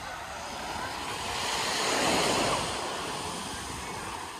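Small sea waves washing up onto a sandy shore, one wash swelling to its loudest about halfway through and then fading back.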